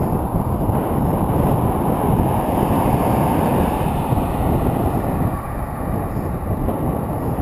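Steady wind rumble buffeting the microphone of a moving bicycle. A car overtakes close alongside, adding passing tyre hiss about three to four seconds in.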